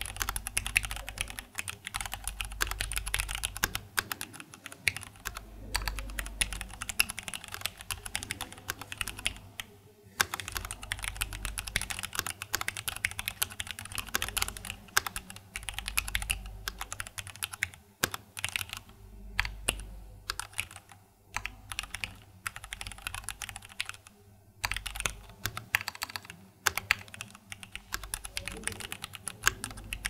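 Continuous fast typing on an Angry Miao Cyberboard mechanical keyboard with Cherry MX Red linear switches and GMK Red Samurai keycaps: a dense run of quick keystroke clacks, broken by a few short pauses.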